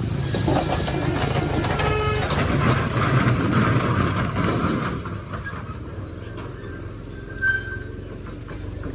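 A vehicle running, louder for the first half and then easing off, with a short horn toot about two seconds in.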